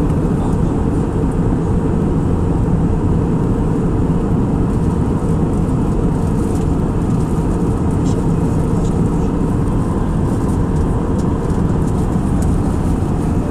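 Steady cabin noise inside an Airbus A319 in cruise: the even, low rush of engines and airflow heard at a window seat, with a few faint light ticks.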